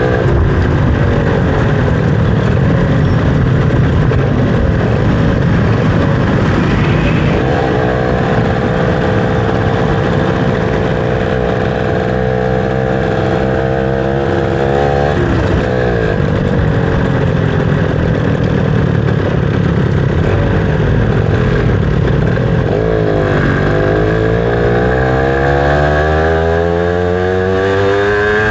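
Motorcycle engine running under way, its pitch climbing steadily and then dropping back sharply, about halfway through, again a few seconds later, and at the very end.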